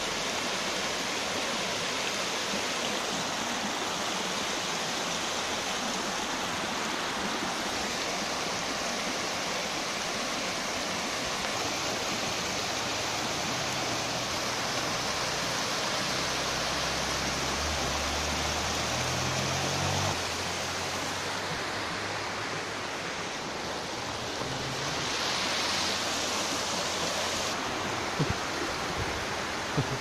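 Small waterfall splashing down a rock face, a steady rushing that eases a little about two-thirds of the way through. A couple of sharp clicks come near the end.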